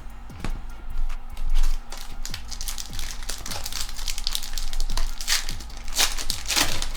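Crinkling and tearing of a foil Pokémon booster pack wrapper being handled and opened, loudest near the end, over background music with a steady beat.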